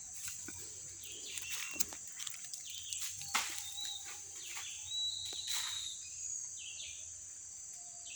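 Forest background sound: a steady high-pitched hiss with short, high chirping calls scattered through it and a few brief snaps or rustles in the foliage.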